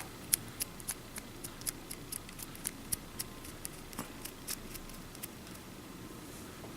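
Light, irregular clicks and taps of small plastic RC kit parts and screws being handled and fitted together, about two or three a second, stopping about a second before the end.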